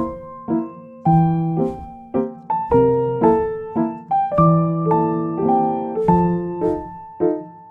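Solo piano background music: a gentle repeating pattern of struck chords and single notes, each dying away before the next.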